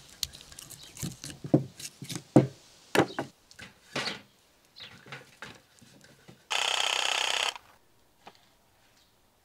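Knife working through a raw beef bone joint, then heavy beef bones knocking and thudding as they are lifted and set down on a tray and cutting board. About six and a half seconds in, a steady buzz lasts about a second and cuts off suddenly.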